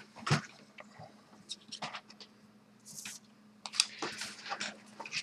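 Trading cards being gathered and slid against one another on a desk: a few short scrapes and taps, most of them about four seconds in.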